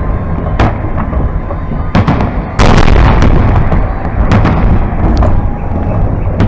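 Aerial firework shells bursting overhead in quick succession: sharp bangs over a continuous low rumble, the loudest bang about two and a half seconds in.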